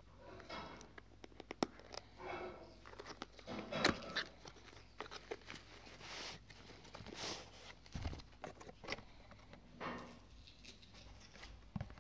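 Cardboard box being handled and opened by hand: irregular rustling and scraping of the card, with a few sharp clicks, the loudest about four seconds in.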